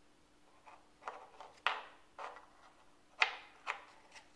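Puzzle pieces being handled and fitted: a handful of sharp clicks and knocks at uneven intervals as pieces tap against each other and the board, two of them louder than the rest.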